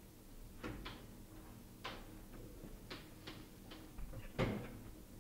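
Footsteps along a corridor, each a short separate tap. Near the end comes a louder click as a door handle is pressed.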